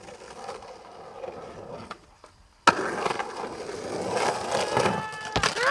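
Skateboard wheels rolling on concrete, faint at first; after a short drop-out about two and a half seconds in, much louder, rougher rolling with sharp clicks as the board rides up a concrete bank.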